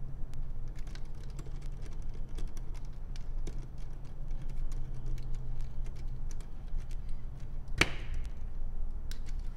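Small light clicks and ticks of a precision screwdriver driving a tiny set screw back into a Canon Dial 35's clockwork film-advance motor, with one sharper click about eight seconds in. A low steady hum runs underneath.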